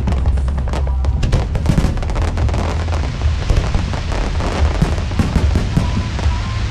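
Fireworks show: rapid crackling bangs over a continuous low rumble of booms, with music playing along.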